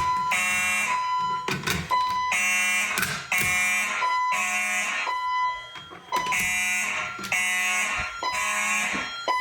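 Several electronic fire alarm horns sounding together in repeating half-second blasts, with a higher steady beeping tone between the blasts. The system is in alarm after a Fire-Lite BG-12 pull station was pulled, and one of the horns is set to the code-3 temporal pattern.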